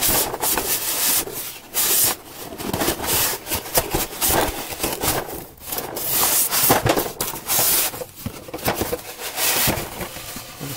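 Cardboard and styrofoam packing rubbing and scraping in irregular bursts as boxed parts are pulled out of a foam tray by hand.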